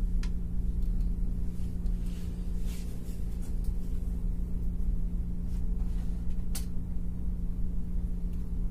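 A steady low hum, with a few light clicks scattered through it.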